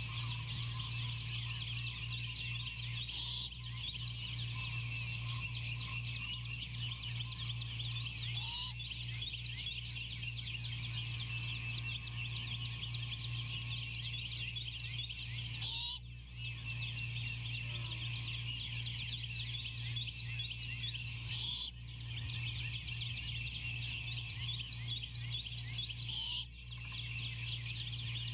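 A dense, continuous chorus of high, rapid chirping calls from many small animals, over a steady low electrical hum from the nest-cam microphone. The whole sound dips briefly three times.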